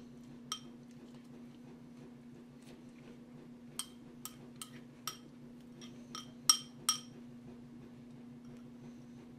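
A metal spoon clinking against a ceramic bowl while someone eats, about ten short ringing clinks, most of them bunched in the middle, the loudest about six and a half seconds in. A steady low hum runs underneath.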